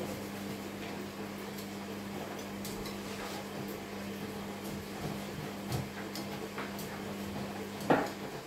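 Kitchen knife cutting raw meat into pieces on a wooden chopping board, with scattered soft taps of the blade on the board. Under it runs a steady low hum that cuts off near the end. A sharper knock about eight seconds in is the loudest sound.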